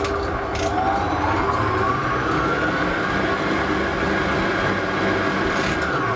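SilverCrest SKM 600 A1 stand mixer's 600 W motor running with no tool fitted. Its whine rises in pitch as the speed dial is turned up about half a second in, holds steady, then falls away near the end as the dial is turned back. The owner hears an unpleasant noise from somewhere inside it and does not like it.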